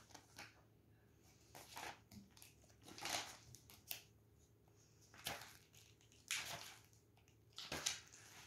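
Faint, scattered scratching and rustling of drawing on paper: a handful of short strokes spaced about a second apart.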